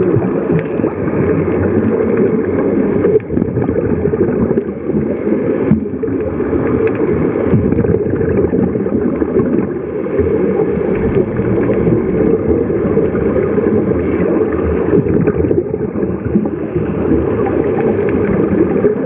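Steady muffled underwater noise, as picked up by a camera sealed in its housing on a scuba dive.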